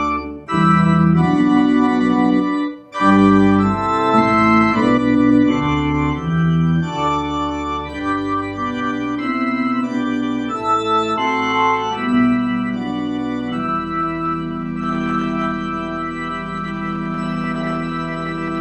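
Organ playing a sequence of sustained chords, settling into one long held chord about three-quarters of the way through.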